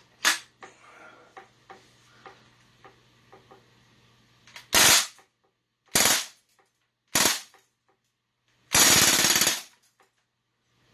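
CO2 airgun being cocked with a sharp click, then faint handling clicks, then firing: a loud burst about five seconds in, two shorter shots about a second apart, and a longer burst of rapid fire of almost a second near the end.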